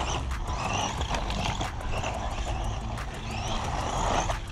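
Electric motor of a Bonzai Jubatus 1/14 scale RC buggy whining up and down in pitch as the throttle is worked, with its tyres scrabbling for grip on packed dirt while it slides about. Short clicks are scattered through it.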